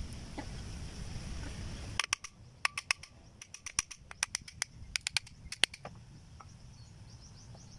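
Brass pressure-washer pump-head parts being handled and set down: a quick, irregular string of a dozen or so sharp metallic clicks and clinks from about two seconds in to nearly six seconds, after a low rumble at the start.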